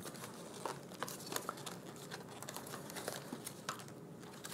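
Hard plastic blister packaging being handled and pried at to free a clipped-in trimmer comb, with scattered faint clicks and crinkles.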